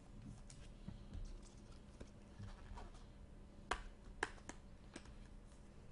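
Light clicks and rustles of Bowman Chrome trading cards being flipped through by hand and slipped into a clear plastic sleeve, with a few sharper ticks in the second half.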